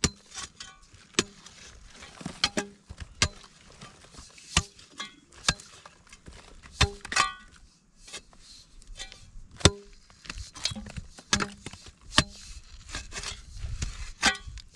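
A long metal digging blade chopping into hard, dry cracked clay, giving sharp, irregular strikes about once or twice a second.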